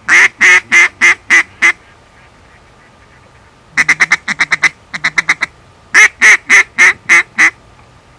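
Hand-blown duck call sounding loud hen-duck quacks to draw in flying ducks. It gives a run of six quacks, then a quick run of about a dozen short quacks about four seconds in, then six more quacks.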